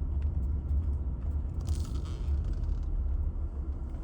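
Steady low rumble of a Jeep heard from inside its cabin, with a brief hiss about two seconds in.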